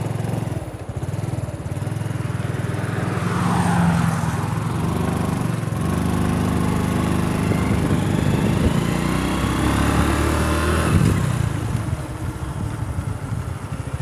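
Motorcycle engine running while riding, its pitch climbing as it speeds up and dropping off about eleven seconds in.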